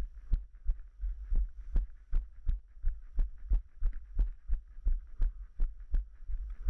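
A trail runner's footfalls jolting a body-mounted camera, low thumps about three a second at a steady running pace.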